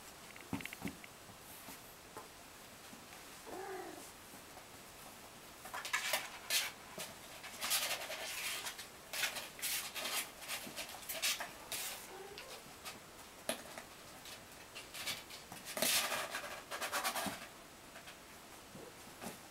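Kittens scrabbling and scratching about on the blankets and board walls of their pen, in rustling clusters that begin about six seconds in, with a short faint mew near the start.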